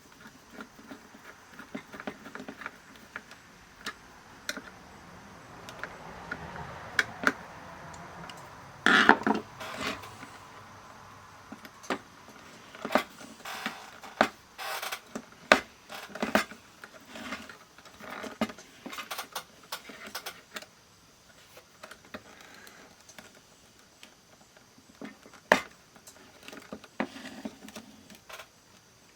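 Small parts and tools handled on a workbench: scattered clicks, taps and light rattles, with a few sharper knocks about nine, fifteen and twenty-five seconds in.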